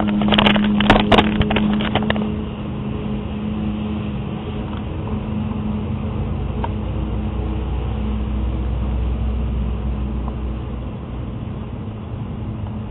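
Knocks and clicks of the camera being handled for the first couple of seconds, then a steady low hum with a deeper rumble that swells in the middle and eases near the end.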